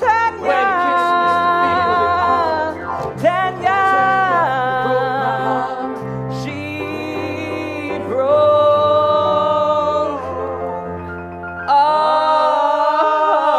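Singing in long, drawn-out held notes that slide between pitches, over sustained instrumental chords.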